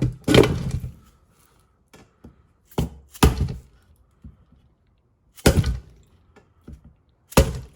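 Sharp knocks, several of them about every two to three seconds and some in quick pairs: a new camshaft seal being tapped into place through a flat-faced piece.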